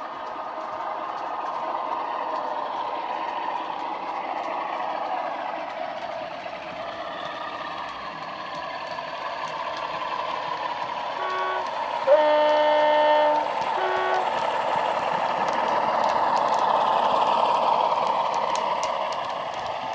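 Bachmann Class 47 model's ESU LokSound decoder playing its diesel engine sound through a small speaker, with the two-tone horn sounding about eleven seconds in: a short note, a longer, louder lower note, then a short note again. A run of sharp clicks near the end, from wheels running over rail joints.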